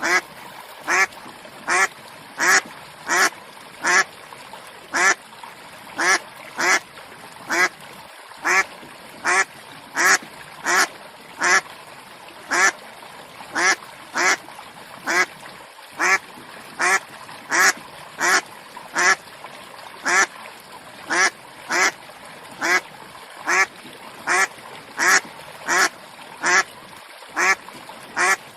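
Duck quacking over and over in short, evenly spaced quacks, about two a second.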